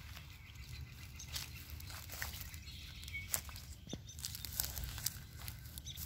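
Irregular crunching clicks of footsteps through dry grass, over a steady low rumble.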